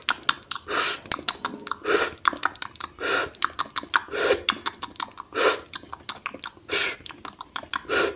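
Close-up ASMR mouth and hand sounds: a breathy whoosh about once a second, seven in all, with quick sharp clicks and pops rattling in between.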